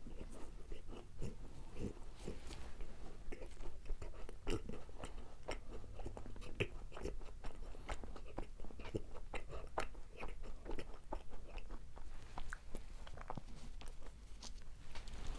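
Close-miked chewing of macarons: a steady stream of small crunches and crackles as the shells are chewed.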